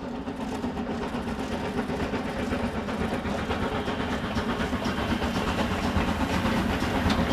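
Steam train running, with a steady mechanical rumble and fine rapid clatter that grows gradually louder as it approaches.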